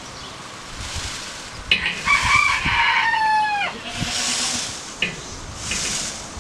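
A drawn-out crowing call from a fowl, one call of about two seconds that drops in pitch at its end. Two short bursts of high rustling follow.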